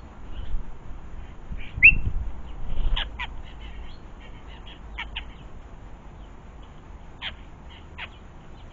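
European starlings calling: a handful of short, sharp squawks and clicks scattered over several seconds, the loudest about two seconds in, with a low rumble under the first few seconds.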